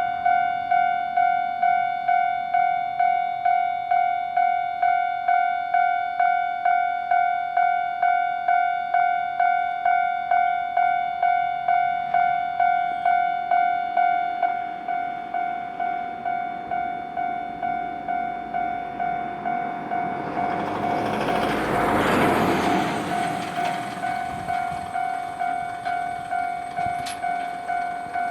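Japanese railway level-crossing alarm ringing its electronic two-tone ding about twice a second, turning quieter about halfway through. A Nankai Electric Railway train then passes through the crossing, its noise swelling and fading over a few seconds while the alarm keeps ringing.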